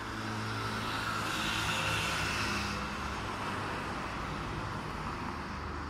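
Steady engine hum with a hiss of traffic noise, a little louder in the first half.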